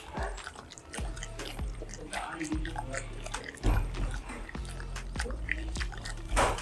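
A Rottweiler licking and smacking its lips, a run of short wet clicks, as a liquid supplement is squirted from a syringe into the side of its mouth.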